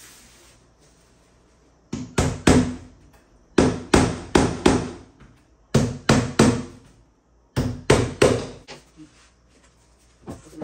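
Hammer driving nails into wooden formwork boards: four runs of three or four quick, sharp blows, with about a second between runs.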